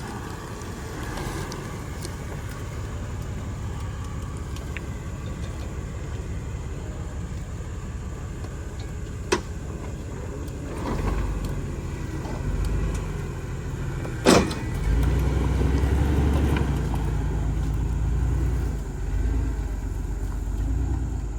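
Jeep Wrangler TJ engine running as it crawls over rough ground, revving up louder a little past halfway and again soon after. Two sharp knocks cut through, one about nine seconds in and a louder one about fourteen seconds in.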